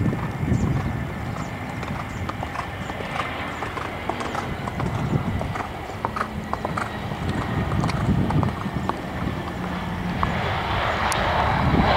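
An Airbus A319 jet airliner rolling out along the runway just after touchdown, its engines running with an uneven low rumble and scattered clicks. The engine noise swells louder near the end.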